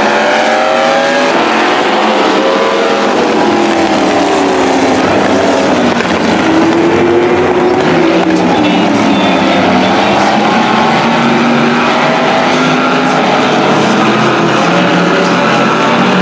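Several demo cars' engines running and revving together on the track, their pitches rising and falling as the cars accelerate and lift off.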